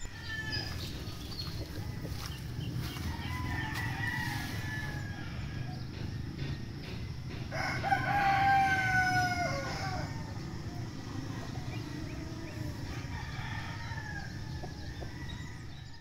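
Rooster crowing: one loud crow about eight seconds in, with fainter crows before and after it, over a steady low hum.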